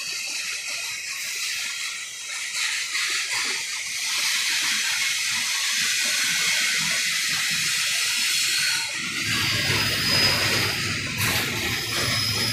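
Union Pacific double-stack intermodal freight train rolling past, a steady hiss of steel wheels on rail. A deeper rumble joins about nine seconds in.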